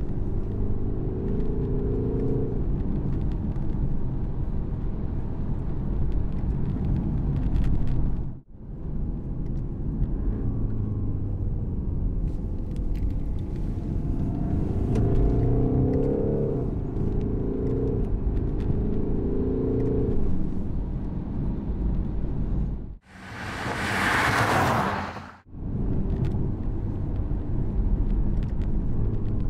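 2021 BMW 420d's four-cylinder turbodiesel heard from inside the cabin, driving with a steady drone and road rumble. Its note rises under acceleration and drops with each upshift: once at the start, then three quick upshifts in a row about halfway through. Near the end a loud rushing noise, like wind, cuts in suddenly for about two seconds.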